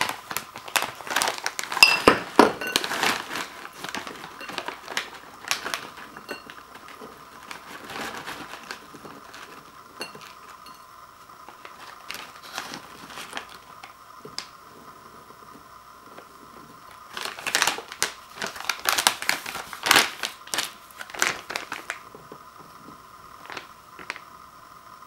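Crinkling of a foil-lined resealable snack bag being handled and tipped, with small crunchy bite-size cookies clattering into a ceramic bowl. The sound comes in two busy spells of sharp crackles and clicks, one over the first few seconds and one about two-thirds of the way through, with scattered rustles between.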